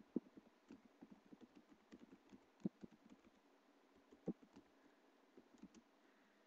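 Computer keyboard typing: faint, irregular keystrokes with a few louder ones, stopping shortly before the end.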